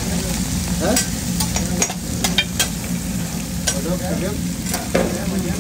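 Corn masa picadas frying in oil on a flat-top griddle, a steady sizzle. Metal spatulas clink and scrape against the griddle in a string of sharp clicks from about a second in, with a couple more near the end.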